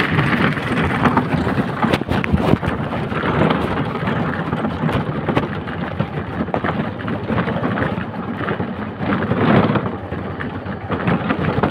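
Motorcycle ridden over a rough unpaved road, with engine, constant knocking and rattling over the surface, and rain and wind noise on the microphone.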